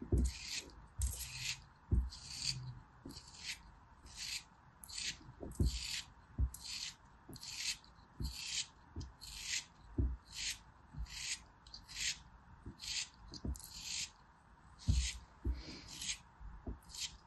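Craft knife blade slicing and scraping through a block of packed kinetic sand, giving crisp, crunchy strokes about two a second, with an occasional soft low knock.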